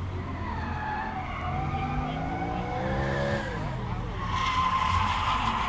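Drift car's engine revving, its pitch climbing and then dropping about three seconds in. From about four seconds in the tyres squeal loudly as the car slides sideways through the corner.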